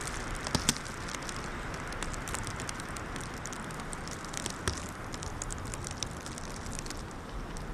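Wind blowing, with many small, irregular crackles and ticks from the plastic trash bag worn against the cold, a few sharper ones about half a second in and again past the middle.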